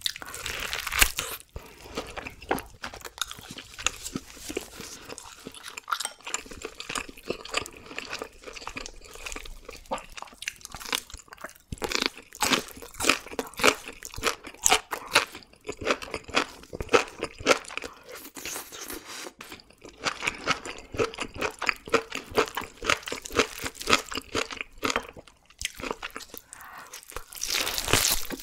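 Close-miked eating sounds: biting and tearing into a seared bone-in tomahawk steak and chewing, with a side vegetable taken partway through. The sound is a dense run of short mouth clicks and smacks, broken by a few brief pauses.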